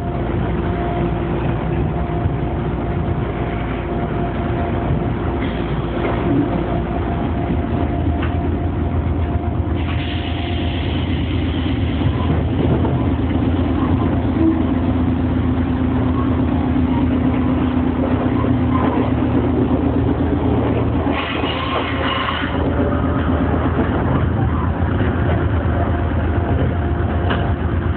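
Gakunan Railway electric train heard from the driver's cab as it comes to a stand at a station, with a steady running hum for the first several seconds. Then comes the steady hum of the standing train's equipment, broken by two short hisses of air, one about ten seconds in and one a little over twenty seconds in.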